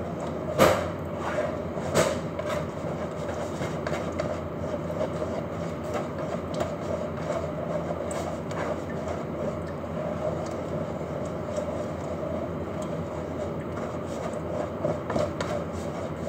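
Wire whisk beating thick cake batter by hand in a plastic bowl: a steady, rapid swishing and clicking of the wires through the batter and against the bowl, with a couple of sharper knocks about half a second and two seconds in.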